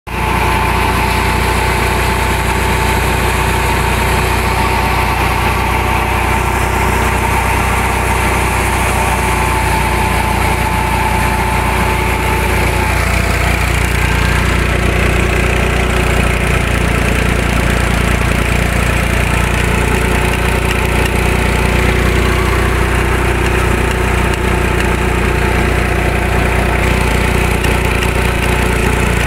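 Massey Ferguson tractor's diesel engine running steadily at about 1300 rpm, driving a wheat thresher through the PTO shaft. The engine drone holds even throughout.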